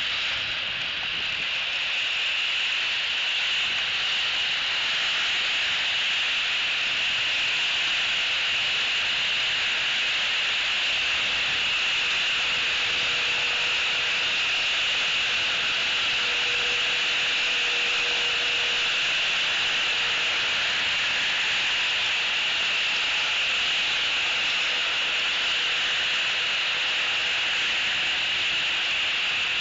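Steady rain falling: a constant, even hiss.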